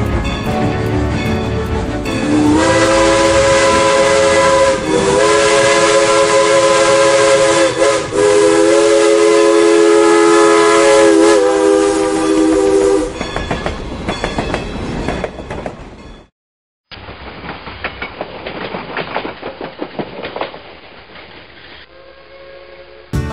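A steam locomotive whistle blowing one long blast of about ten seconds, a chord of several tones that wavers twice before fading away. After a brief cut, a quieter recording of a moving train with irregular clatter.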